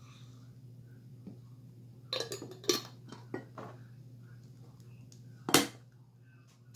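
Kitchen handling noises: a cluster of clinks and knocks from dishes and utensils about two seconds in, then one sharp knock near the end, over a steady low hum.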